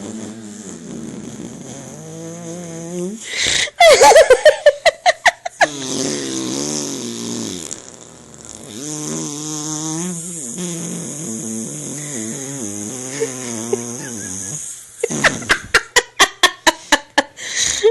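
Fart sound effects played back: long, low, wavering buzzy blats. Twice, about 4 seconds in and again near the end, comes a loud run of rapid stuttering pops.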